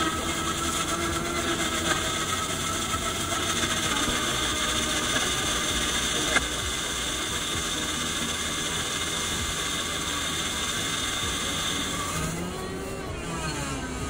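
7-Eleven in-store smoothie machine blending a frozen smoothie in its cup: a steady motor whine with several held tones that winds down about twelve seconds in. A single sharp click about six seconds in.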